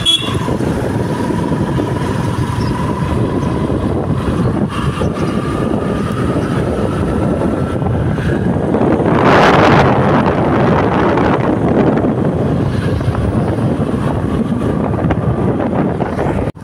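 Motorcycle riding along a road: engine running under a steady rush of wind on the microphone, with a faint whine that rises slightly in pitch and a louder rush of noise about nine seconds in.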